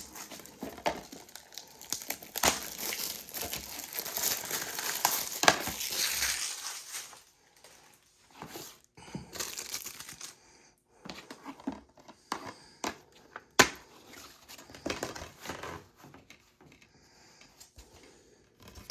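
Plastic shrink wrap being torn and crinkled off a DVD case: a dense run of crackling for about seven seconds, then scattered clicks and rustles as the case is handled.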